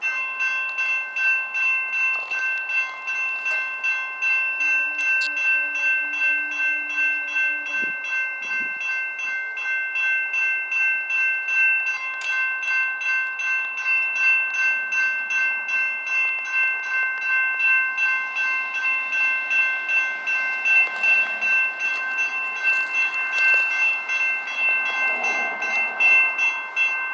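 Railroad crossing warning bell ringing in quick, even strokes. It starts suddenly as the crossing signals activate for an approaching train.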